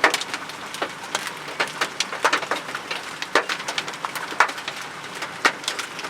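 Giant hailstones, over 5 centimetres across, striking the car and the ground. They land as irregular sharp knocks, a few a second, over a steady rattle of smaller hail.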